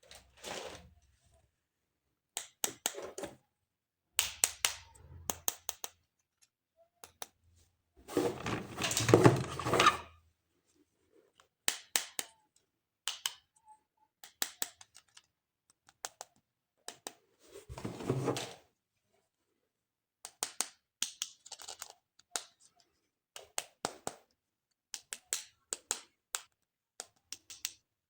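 Hands handling plastic toys and packaging: a string of sharp clicks and taps, with two longer, louder stretches of handling noise, the loudest about eight to ten seconds in and the other around eighteen seconds in.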